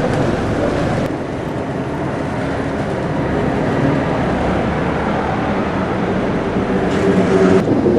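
Street traffic noise: a steady vehicle engine rumble, with an abrupt change about a second in and again near the end.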